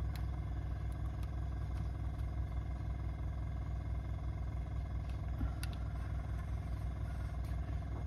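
Steady low electrical hum, with a few faint clicks and taps as the phone is handled.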